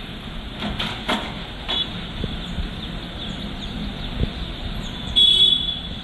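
Steady hum of road traffic, with faint small-bird chirps and a few short sharp sounds about a second in. About five seconds in comes a brief, loud, high-pitched sound.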